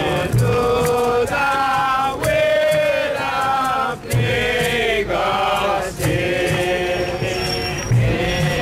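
A group of Bobo Shanti Rastafari voices chanting together in unison, with long held sung notes that break and start again every second or two.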